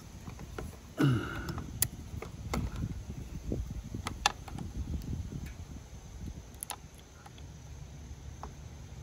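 Small metal clicks and ticks of a Torx key working the screw in a motorcycle handlebar lever perch while fitting a new lever, with a brief low vocal sound, falling in pitch, about a second in, over a steady low rumble.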